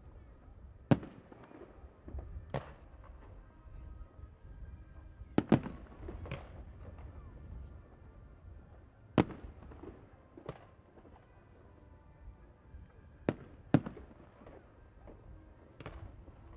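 Fireworks salute: aerial shells bursting in the sky, about ten sharp bangs at irregular intervals, some in quick pairs, each followed by a short echo.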